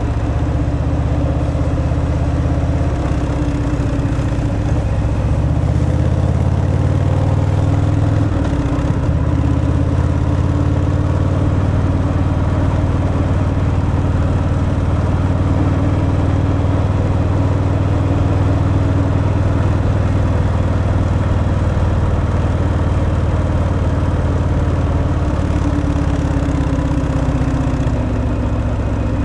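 Harley-Davidson Fat Boy's V-twin engine running steadily through its stock exhaust on the move, with a brief change in the engine note about eight seconds in.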